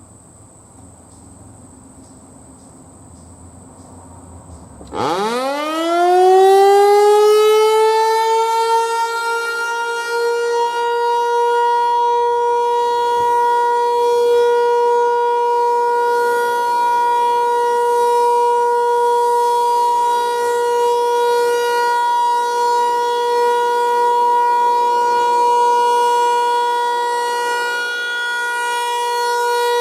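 Federal Signal 508 outdoor warning siren starting up about five seconds in, its pitch climbing quickly and then levelling off into one steady, loud tone: the continuous alert signal of a routine siren test.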